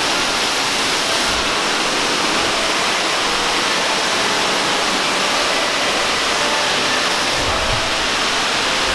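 Water rushing through a storm-drain tunnel, really loud and steady.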